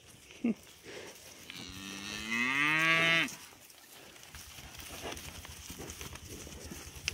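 A cow mooing once: one long call of about two seconds, starting about a second and a half in and rising in pitch as it goes.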